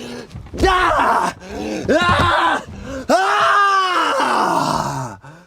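A man groaning and yelling in loud, drawn-out bursts of effort as he strains to force an oversized bag into an airplane overhead bin.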